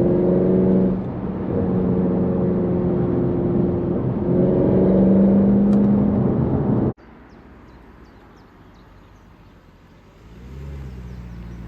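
Mercedes C63 AMG's naturally aspirated 6.2-litre M156 V8 running hard under load, its note holding steady with two brief dips. The sound cuts off abruptly about seven seconds in, leaving a much quieter hiss.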